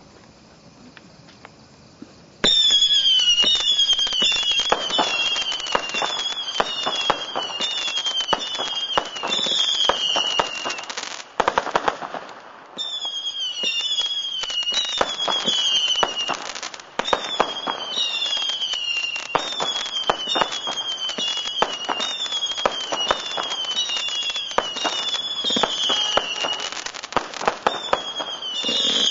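"Cat Attack" consumer firework firing a long display of many falling whistles over dense crackling pops. It starts about two and a half seconds in, pauses briefly near the middle, then carries on.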